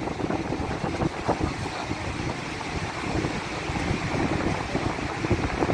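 Steady rushing roar of Niagara Falls, with wind buffeting the microphone.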